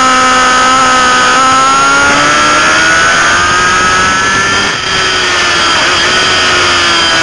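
Sportbike inline-four engine running at high revs, heard on board: a steady high engine note that climbs slowly in pitch, dips briefly just before five seconds in, then carries on and cuts off abruptly at the end.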